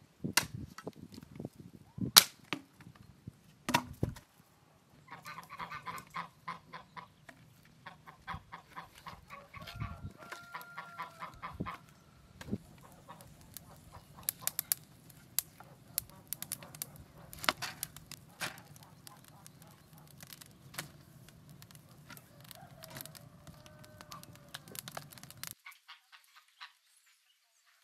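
Domestic goose honking a few times, short calls, among a scatter of sharp clicks and snaps, with a few loud cracks in the first seconds.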